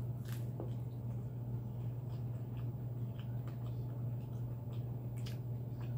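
A bite of pizza being chewed: scattered soft mouth clicks and small crunchy ticks, the clearest about a third of a second in and again near the end. A steady low hum runs beneath it and is the loudest sound.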